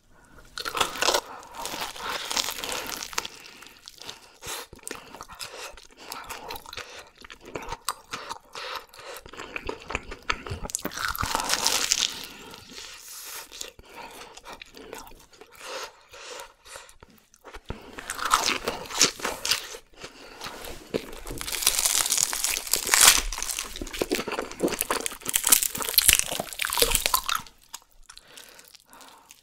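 Close-miked eating of deep-fried whole chicken and a fried cheese ball: bursts of loud, crisp crunching from the fried crust come every several seconds, with quieter wet chewing between them.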